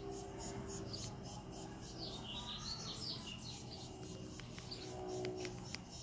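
Garden ambience: an insect chirping high in an even pulse of about four a second, with a bird's warbling call about two seconds in, and a few light clicks near the end.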